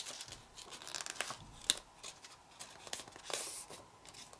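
Pleated sheet of printer paper being handled and creased by fingers: faint crinkling and rustling with scattered small crackles, a sharper crackle about a second and a half in and a longer rustle near three seconds.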